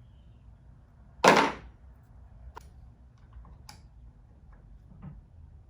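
A battery chainsaw being reassembled by hand after its chain has been refitted: one loud, sharp clack of parts knocking together, followed by a few faint clicks.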